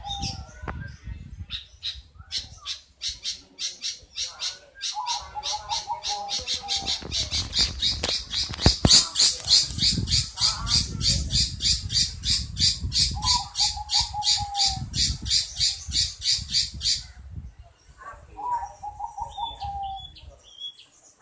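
Long-tailed shrike (cendet) calling: a fast run of sharp, high chips that speeds up and grows loudest in the middle, then stops suddenly. A short, falling cooing phrase comes in a few times between the chips.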